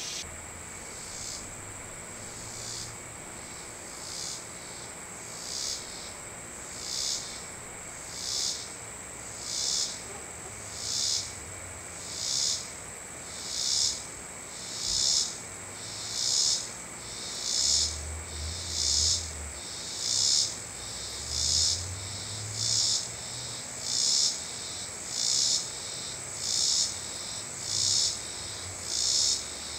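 Insects calling: a steady high trill, with a buzzing pulsed call over it that repeats roughly every second and a quarter and grows louder over the first half.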